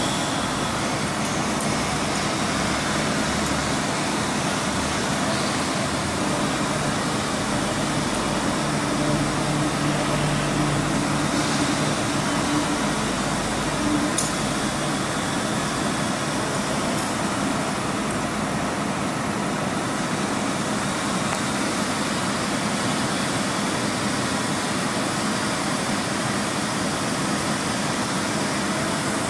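Hydraulic power unit of a 100-ton electro-hydraulic servo CNC press brake running with a steady whirring hum. For several seconds about a third of the way in, a pitched hum rises above it, ending with a click about halfway through.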